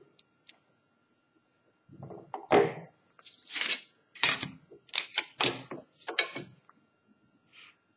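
Drawing instruments being handled on a drawing board: a run of about seven loud scrapes and knocks, starting about two seconds in, as a plastic set square and straight edge are slid over the paper and set down.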